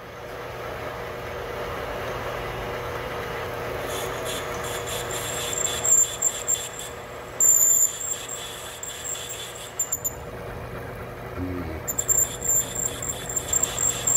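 Metal lathe running with a steady hum while a cutter takes a cut on a brass part held in a collet. From about four seconds in, the cut squeals in high-pitched bursts, loudest around six and eight seconds in and again near the end, with the part sticking a long way out of the collet.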